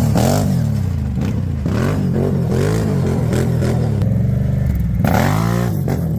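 Can-Am Renegade 800R ATV's V-twin engine revving up and down over and over in quick throttle blips, with a longer, higher rev about five seconds in.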